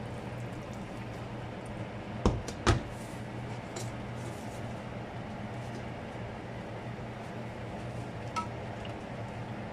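An enamelled cast-iron pot set down on a glass-ceramic cooktop: two hard knocks about two seconds in, half a second apart, over a steady low hum, with a lighter click near the end.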